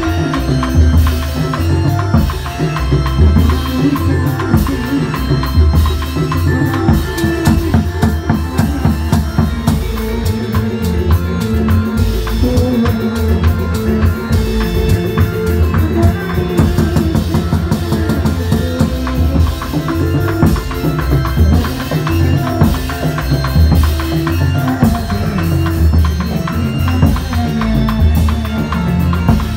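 Loud live Indonesian reog ensemble music: fast, continuous drumming with pitched melodic tones above the beat.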